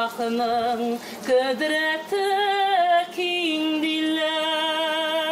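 A woman singing a slow folk song unaccompanied. She moves through a few drawn-out notes, then holds one long note with vibrato from a little past halfway.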